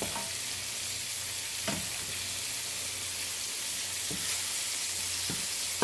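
Beef kabob and chopped peppers, onion and tomato sizzling steadily in a frying pan, with a wooden spoon scraping and knocking softly against the pan about four times.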